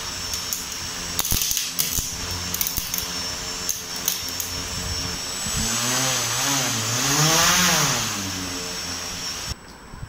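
Small electric motor and propeller of a homemade toy RC airplane running under power, with a high steady whine and a few light clicks. About five and a half seconds in it speeds up to a louder rising whine, falls back, and cuts off suddenly near the end.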